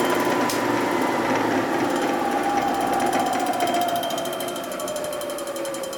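Machine tool taking a cut across the gasket face of a Harley-Davidson Sportster engine part with a dull single-point bit, running with a dense, chattering cutting noise that tears the metal rather than cutting it cleanly. A machine tone slowly falls in pitch from about two seconds in, and the noise eases near four seconds in.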